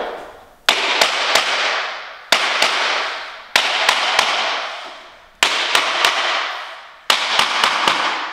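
Hammer striking a tapping block against the edge of Quickstep laminate floor planks, sharp knocks in quick clusters of two to four, driving the planks' locking edges down so they lie flush. This flooring needs a lot of tapping to seat fully.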